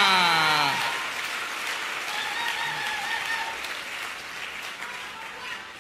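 A man's drawn-out shout, falling in pitch, ends about a second in. A church congregation then applauds, slowly fading away.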